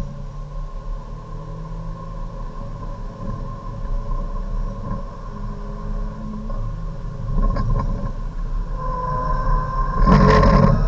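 Hyundai Avante race car's engine heard from inside the cabin under full acceleration, revving up through third gear and then shifting up to fourth. A loud rushing burst near the end.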